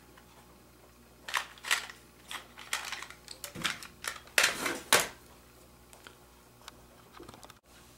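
Sharp clicks and taps of a mini screwdriver and loose screws against a laptop's plastic case as its keyboard screws are removed from the underside. There are about a dozen, bunched between one and five seconds in.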